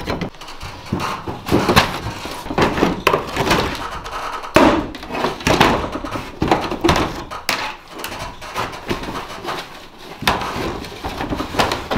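Irregular knocks, scrapes and clatter as a new roof vent fan frame is handled and set down into its opening in a riveted metal camper roof.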